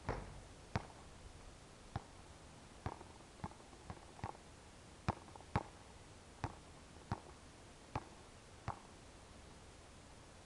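A basketball being dribbled on an outdoor hard court: about a dozen sharp bounces at uneven intervals.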